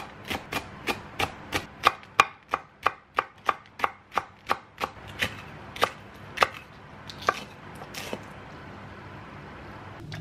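Kitchen knife slicing a Korean green onion (daepa) into rounds on a wooden cutting board: steady chops about three a second, thinning to a few scattered ones after about six seconds.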